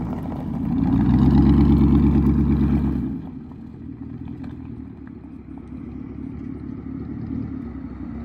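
Chevrolet Tahoe V8 running through a new true dual cat-back exhaust with big tips. It is revved for a couple of seconds, then drops back about three seconds in to a steady, lower exhaust rumble.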